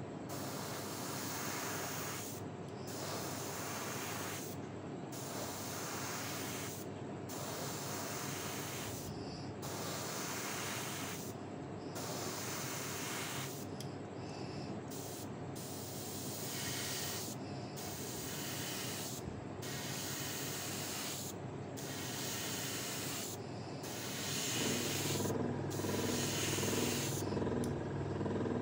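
Airbrush spraying paint onto a soft plastic fishing lure in repeated bursts of hiss, each about two seconds long with short breaks between. A low steady hum under it grows louder near the end.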